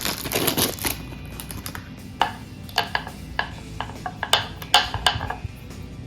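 Packaging rustling, then a series of sharp plastic clicks and taps as parts of a ceramic cookware set and its detachable handle are handled and fitted.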